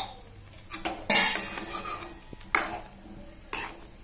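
Metal ladle stirring chicken in a watery masala gravy in an aluminium kadai, scraping and knocking against the pan in a few separate strokes, loudest about a second in.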